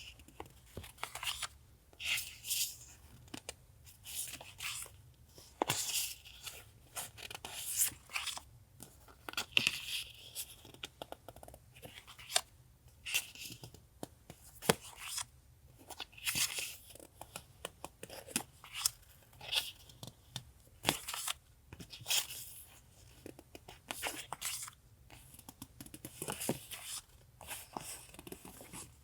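Paper and packaging being handled, rustling and crinkling in short, irregular bursts, as journaling papers and stickers are picked up, unwrapped and set down.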